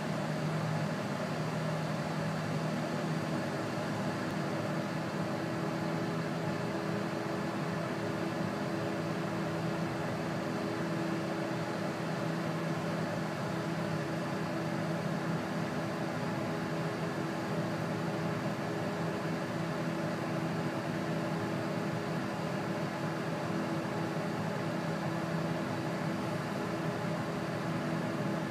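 Light turbine helicopter, a Bell 206 JetRanger type, running on the ground with its main rotor turning slowly: a steady, even engine hum and whine with a low drone beneath, holding the same pitch and level throughout.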